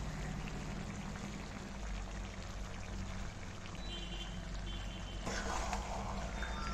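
Mutton pieces sizzling steadily in a kadai as they are slow-fried dry (kasha). Near the end a spatula stirs and scrapes through the meat, making a louder, rougher scraping.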